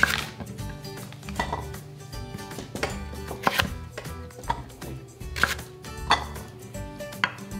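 Kitchen knife cutting through a leek stalk on a wooden cutting board: about seven separate, unhurried cuts, each ending in a sharp knock of the blade on the board.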